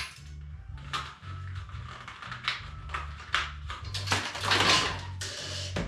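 Plastic cable trunking and loose cables being pulled off a wall: an irregular series of knocks, clicks and scraping rustles, with a longer scrape about four and a half seconds in.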